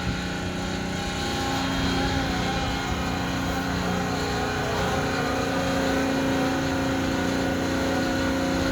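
Concrete mixer truck with its drum's hydraulic drive engaged, running the drum in the forward direction: a steady machine drone with several held tones that shift slightly about halfway.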